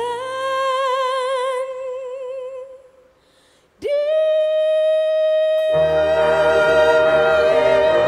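A sung ballad: a voice slides up into a long held note with vibrato that fades away, there is a short pause, then a second long held note begins, with the accompaniment coming in under it a couple of seconds later.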